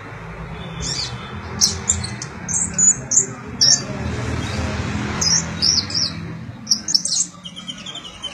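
Konin (kolibri ninja), a small sunbird, singing a run of short, high, rapid chirps and twittering trills, over a steady low background hum.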